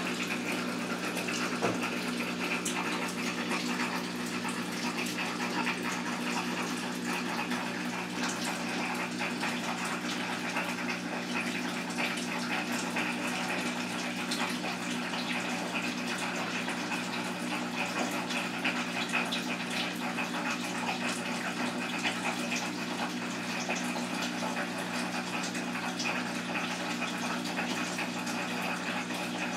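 Steady hum and hiss at an even level, with no distinct events.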